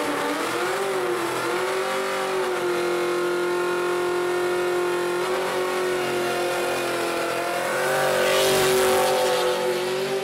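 A car engine held at high revs in one long, nearly steady note during a burnout, with a brief dip in pitch about a second in. The hiss of spinning tyres grows louder around eight seconds in.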